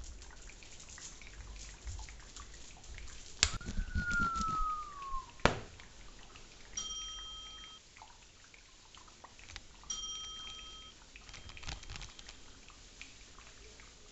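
Foley sound effects performed with everyday objects: scattered clicks and knocks, then a sharp knock followed by a squeak falling in pitch, another sharp knock, and two short ringing tones a few seconds apart.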